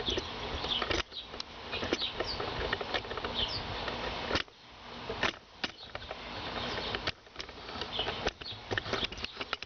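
Scattered clicks and knocks of a riding-mower seat and its mounting parts being handled and lowered into place, over a steady hiss.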